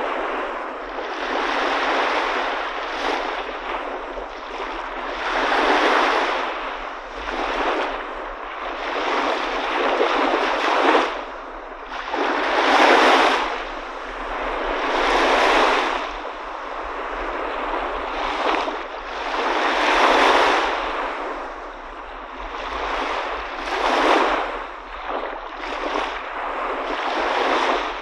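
Sea waves breaking and washing in, the surf swelling and ebbing every few seconds.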